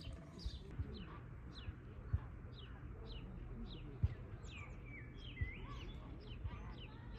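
Birds chirping: many short, quick chirps, with a few longer sliding whistles a little past the middle. Three brief low thumps stand out along the way.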